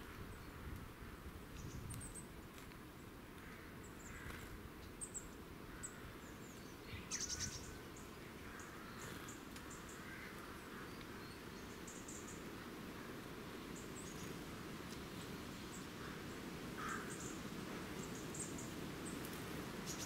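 Small woodland birds calling with short, very high chirps scattered throughout, over a steady low background rumble. A brief burst of sharp ticks comes about seven seconds in.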